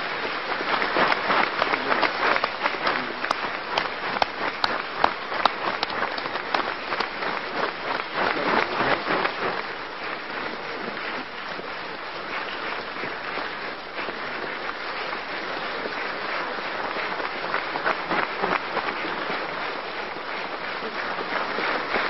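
Large audience applauding with dense, sustained clapping. It is loudest over the first ten seconds or so, then settles into steadier, somewhat quieter clapping.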